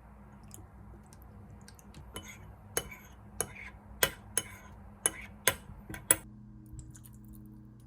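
A run of about nine sharp clinks and knocks of kitchenware, the loudest near the middle and end. Right after the last clink a steady low hum starts.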